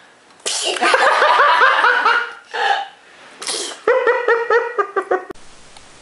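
Baby sneezing twice, about half a second in and again about three and a half seconds in. Each sneeze is followed by quick, rhythmic, high-pitched laughter, and the second run of laughter cuts off suddenly.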